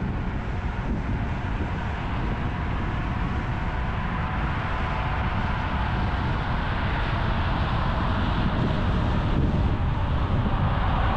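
Steady road and wind noise of a car cruising on an expressway, growing slowly louder over the last few seconds.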